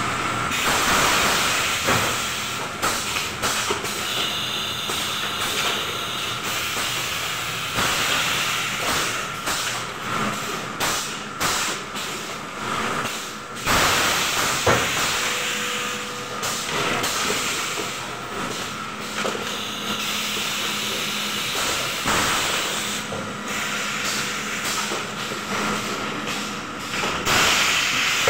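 Wooden spoon production machines with chain conveyors running: a steady mechanical hiss with a faint steady whine and frequent irregular clicks and clatter.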